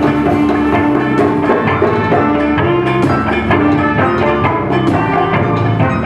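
Live band playing: saxophone and trumpet holding notes over electric guitar, drum kit and laptop electronics.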